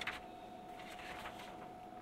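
Quiet workbench handling sounds: a few small clicks near the start and faint scraping in the middle, over a steady faint tone.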